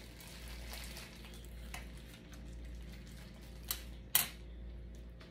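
Utensils clinking against a dish during a meal: three short, sharp clinks, the loudest about four seconds in, over a steady low hum.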